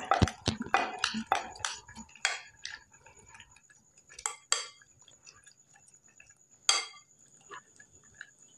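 Raw chicken pieces in marinade being mixed by hand in a glass bowl: irregular clicks and knocks of the meat and fingers against the glass, thick for the first two seconds, then a few separate knocks.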